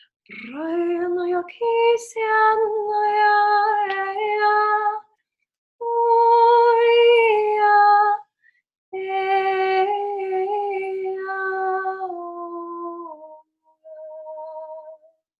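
A woman singing wordless sacred tones unaccompanied, in four long held phrases. The first opens with an upward slide, and the last, near the end, is softer and higher.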